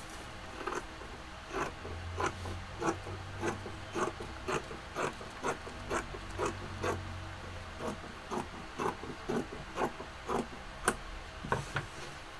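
Scissors cutting through curtain fabric along a marked line, a steady series of snips about two a second.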